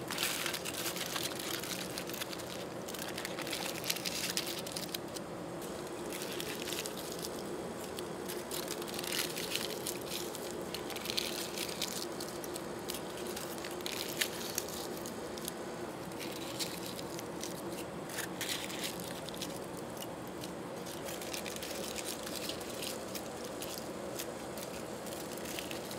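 Aluminium foil crinkling and crunching as it is crumpled and pressed by hand over electrical feedthrough connectors, in irregular crackles throughout, over a faint steady hum.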